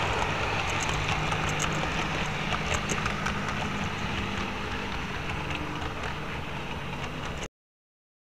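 Model railway train running along the track, heard close up from a small camera riding on the layout: a steady rumble with a low motor hum and light clicking. It cuts off abruptly about a second before the end.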